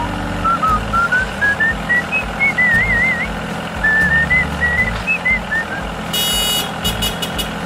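Background music: a whistled tune over a steady bouncy beat, with a short burst of beeping about six seconds in.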